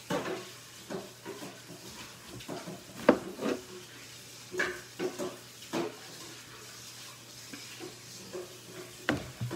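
Tableware being handled: a few sharp clinks and knocks of utensils and dishes, spaced irregularly, over a low steady hum.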